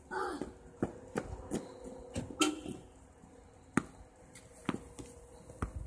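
Tennis ball bouncing on a concrete driveway: a few short, sharp knocks at uneven intervals, the loudest about four seconds in.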